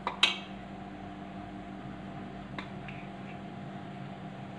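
A spoon clinks sharply once against a steel plate near the start, with a much fainter tap about two and a half seconds in, over a steady low electrical hum.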